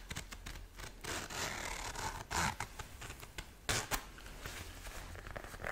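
Metal zip of a zip-around wallet being drawn along its edge: a long zipping run about a second in, then a couple of sharper scrapes.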